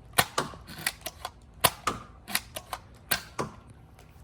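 Nerf Elite 2.0 dart blaster being primed and fired over and over: a string of sharp plastic clacks, the loudest coming in pairs about every second and a half.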